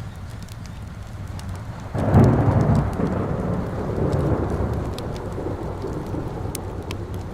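A thunderclap about two seconds in, rumbling and slowly fading over the next few seconds, over steady rain and the scattered snaps of a crackling fire.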